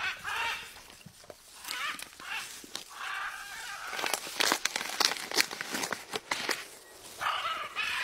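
A blue-and-yellow macaw at a green coconut: short calls near the start, around two and three seconds in and near the end, with a run of sharp clicks and scrapes of its beak on the husk in the middle.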